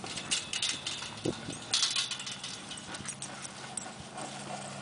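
Small puppy scrambling through grass while nosing a large inflatable ball along: irregular rustling, scuffing and light knocks of paws and ball, loudest about two seconds in. A faint steady low hum sets in about two seconds in.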